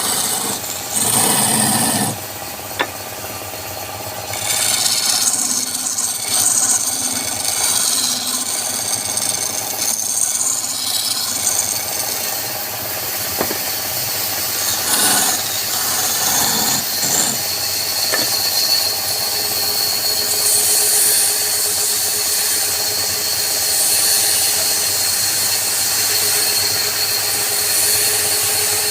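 Wood lathe running while a turning tool works the spinning wood, a rough rasping hiss that comes and goes in uneven passes. A steady high whine joins in about two-thirds of the way through.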